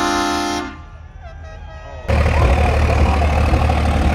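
A horn blast with several steady pitches sounding together, cutting off sharply within the first second. About two seconds in, a loud diesel truck engine starts running hard, abruptly, with a noisy hiss over a deep low drone.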